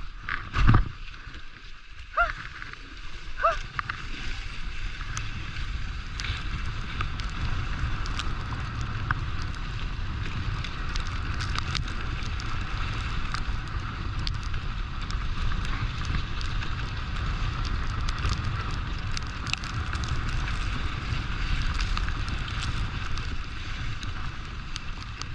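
Steady rushing noise of fast travel over snow behind a running dog team, with wind on the microphone and faint scattered clicks; two short squeaks about two and three and a half seconds in.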